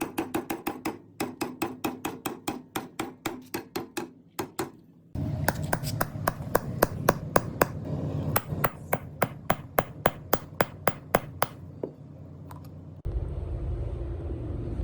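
Rapid hammer blows on metal, about five a second with a short ring after each, in two runs separated by a brief pause about four seconds in. The second run is over a steady low machine hum, which drops out and then starts again near the end.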